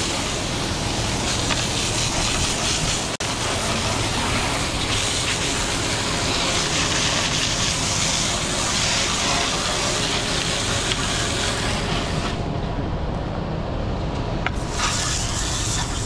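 Wet concrete sliding down a mixer truck's chute, a steady rushing hiss over the truck's engine running underneath. The hiss thins out for about two seconds near the end.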